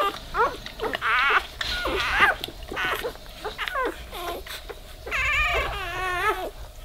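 Newborn Weimaraner puppies squeaking and crying: many short, high, rising-and-falling squeals one after another, with a couple of longer wavering cries near the end.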